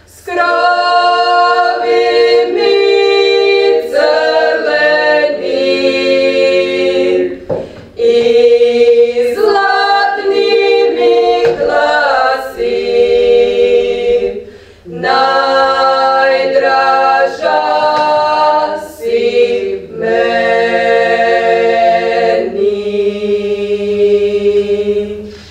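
Four women singing a Podravina folk song a cappella in close harmony, in long held phrases with short breaks for breath; the singing stops near the end.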